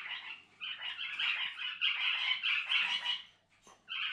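Pet cockatiels chirping and chattering in a quick string of high calls, with a short lull near the end before another call.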